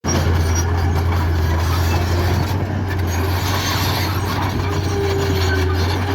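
A heavy machine's diesel-type engine running steadily with a deep, even drone.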